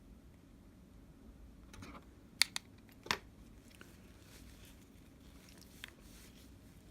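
Small sharp clicks and taps as a thin screen protector is handled and pressed onto a phone. There are three close together about two and a half seconds in and a lighter one near the end, with faint crinkling of the plastic between them.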